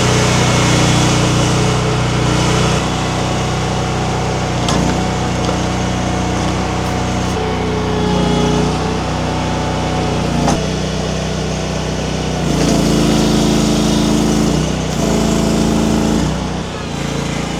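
Small engine of hydraulic firewood-splitting equipment running steadily, its tone shifting to new pitches several times, with two sharp knocks about five and ten seconds in.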